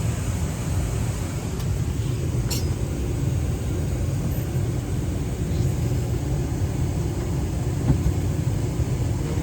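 Steady low rumble of an airliner cabin parked before engine start, with a light click about two and a half seconds in.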